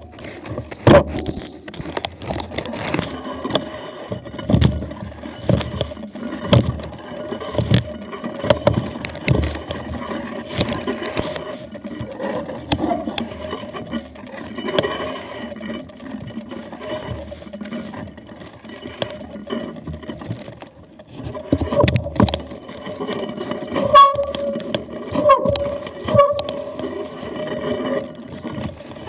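A mountain bike moving slowly over a rough, muddy track: irregular knocks and rattles of the camera and bike over the bumps, with wind on the microphone and a faint steady whistle-like tone under it.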